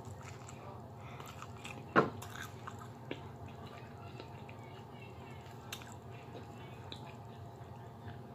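Mouth sounds of someone chewing a mouthful of rice and cabbage, with a sharp click about two seconds in and a few fainter clicks later, over a steady low hum.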